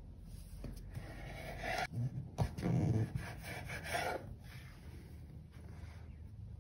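Kitchen knife cutting through a ball of risen dough and scraping along the floured worktop, with a sharp tap about two and a half seconds in.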